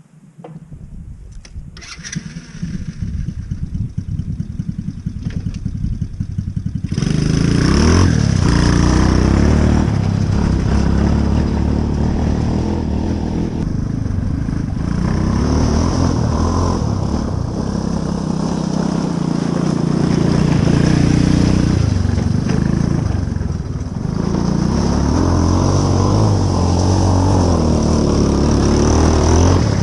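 The Coolster mini Jeep's 125cc engine running as the Jeep drives off and around. It is quieter for the first few seconds, then much louder from about seven seconds in, with the engine pitch rising and falling as it revs up and eases off.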